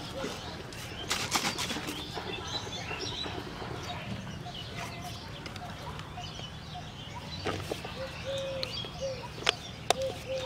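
Birds calling, with short low notes repeating now and then and higher chirps. Sharp clicks and crinkles of plastic bottles and a plastic bag being handled, most of them near the end.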